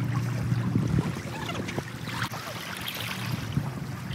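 Small waves lapping and trickling among shoreline rocks, with scattered little splashes and clicks. A low steady drone underneath fades out about a second in.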